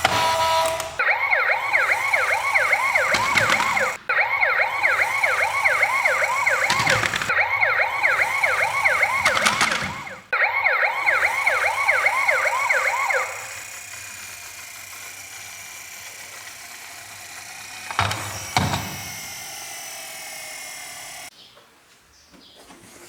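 Emergency-vehicle siren in a fast yelp, several rising sweeps a second, which cuts off about thirteen seconds in and gives way to a fainter, slowly falling tone that stops about eight seconds later. A few sharp knocks are heard along the way.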